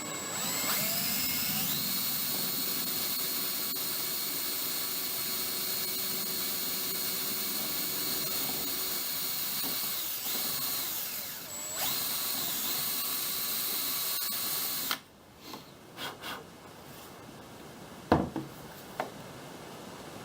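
Cordless drill with a small 5/64-inch bit drilling a cotter-pin hole: the motor whine rises as it spins up, eases off briefly and picks up again, then stops. A few knocks follow, one louder than the rest.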